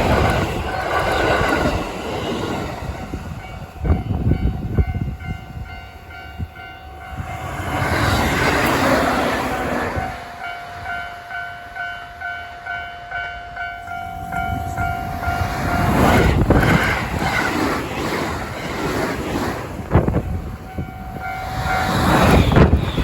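A Japanese level-crossing warning bell rings in a steady repeating pulse while trains pass at speed, in loud surges of rushing noise with wheels clattering over the rail joints.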